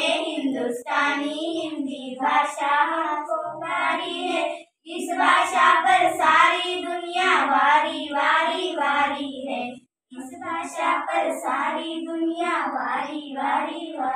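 Young girls singing a Hindi song in praise of the Hindi language in unison, unaccompanied. They sing in three long phrases with brief pauses for breath between them.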